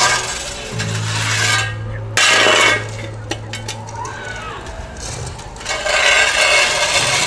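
Shovel dragged along pavement, giving a rough rasping scrape, over a steady low droning soundtrack. A short loud burst of noise comes about two seconds in.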